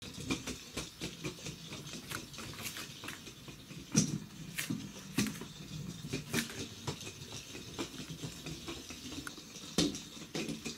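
A black kitten's paws and claws tapping and clicking irregularly on a hard wood-look floor as it moves about, with louder knocks about four seconds in and near the end.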